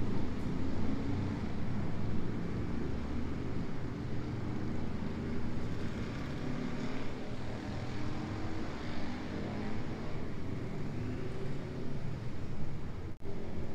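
Motorcycle engines running off-picture, a steady, wavering engine drone with no words over it. Near the end the sound cuts out for an instant.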